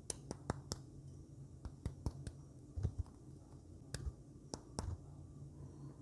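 Fingers handling a marshmallow skewer close to the microphone, making a run of sharp, irregular clicks and ticks, with a low steady hum underneath.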